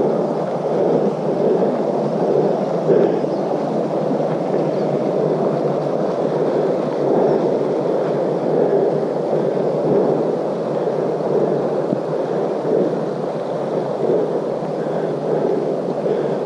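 Steady rushing wind noise buffeting the microphone, wavering slightly in level.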